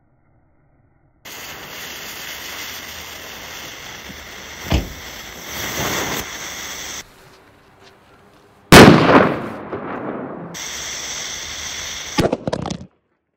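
A large firecracker (petarda) going off: a steady hiss with a sharp pop about five seconds in, then a very loud bang about nine seconds in that dies away over a second, and a few quick cracks near the end.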